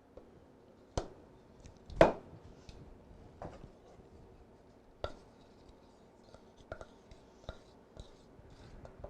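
Utensil clicking and knocking against a bowl and pitcher as runny lemon glaze is scraped across, with scattered light ticks and a sharper clunk about two seconds in and another about five seconds in.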